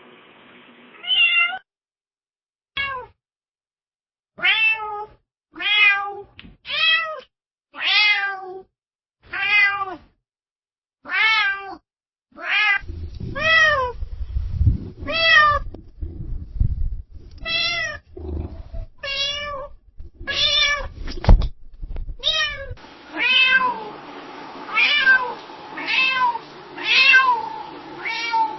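Domestic cat meowing over and over, short calls about one a second that rise and fall in pitch. A low rumble lies under the calls through the middle stretch, and a steady hum lies behind them near the end.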